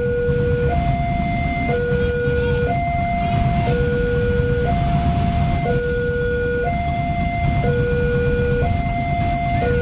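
Electronic warning alarm of a railway level crossing sounding a two-tone 'teng-tong' pattern: a lower and a higher tone alternate about once a second, steady and unbroken, the signal that a train is approaching and the barriers are closed. A low, steady rumble of engines runs underneath.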